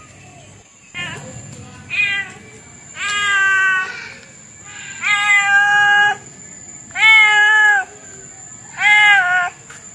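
A domestic cat meowing over and over, about six meows roughly two seconds apart. Some are short and some are drawn out for about a second. A faint steady high whine runs underneath.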